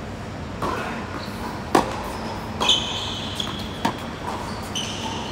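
Tennis ball being struck back and forth with rackets during a doubles rally on a hard court: four sharp pops about a second apart, with a couple of brief high squeaks between them.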